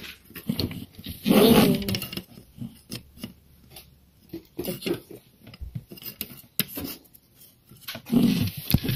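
Plastic toy figure and toy seesaw handled on a tabletop: scattered light knocks and clicks, with a short voice-like sound about a second and a half in and again near the end.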